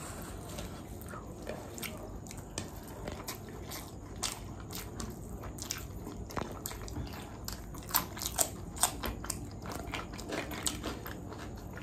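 A person chewing food close to the microphone, with crisp crunches from biting raw onion. Several sharp crunches come close together about eight to nine seconds in.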